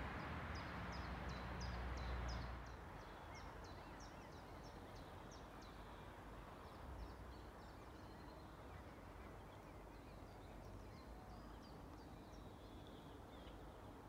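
A small songbird singing a quick run of short, high, downward-slurred notes, several a second, fading after about six seconds, over faint outdoor background noise. A low rumble drops away about two and a half seconds in.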